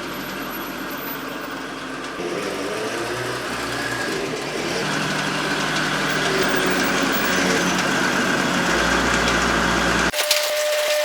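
1979 Toyota Celica Supra's 4M-E straight-six engine running at idle, steady and growing slowly louder. About ten seconds in it cuts off abruptly to a different steady tone with a few clicks.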